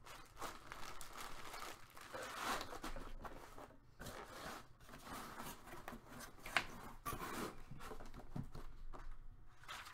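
Clear plastic bag crinkling and rustling as it is handled and packed into a cardboard box, with a few light taps and clicks as the box is closed.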